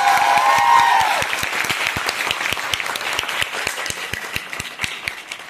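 Audience applauding: a dense round of hand claps that thins out and fades toward the end.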